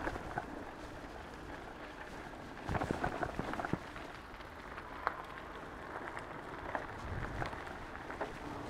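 Riding noise from an e-bike on the move: a steady rush of tyres and air, with a cluster of rattling clicks about three seconds in and a low wind rumble on the microphone near the end.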